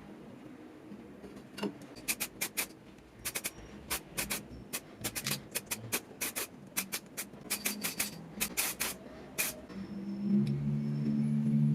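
Irregular sharp clicks and taps, in quick clusters, of hands working on small hard parts, with a low steady hum joining about ten seconds in.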